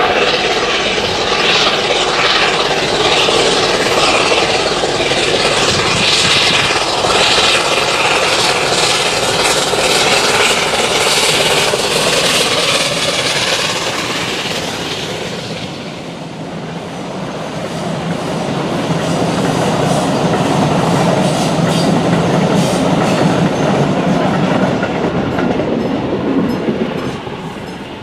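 Steam locomotive passing at the head of a passenger train, loud at first. Then the coaches roll by with a lower rumble and clickety-clack over the rail joints, fading away near the end.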